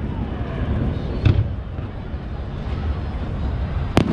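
Aerial fireworks shells bursting overhead: a boom about a second in and a sharp bang near the end, over a steady low rumble.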